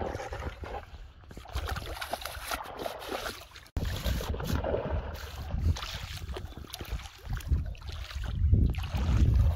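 Shallow muddy water splashing and sloshing as a boy wades through it grabbing at fish by hand, with wind rumbling on the microphone, heaviest near the end.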